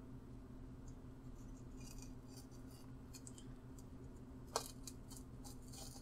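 Blue tape being peeled and crumpled by hand off a printed plastic part, the tape damp with glass cleaner: faint crackling with scattered small clicks and one sharper click about four and a half seconds in. A steady low hum runs underneath.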